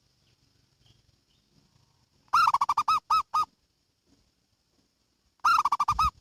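Zebra dove (perkutut) singing twice, about two seconds in and again near the end. Each phrase is a quick rattle of notes that ends in two or three separate coos.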